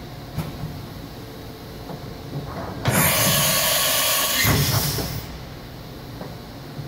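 Doosan DMV4020 vertical machining center moving its spindle head, with a loud hiss that starts suddenly about three seconds in and lasts about two seconds, with a low thump at its start and another near its end.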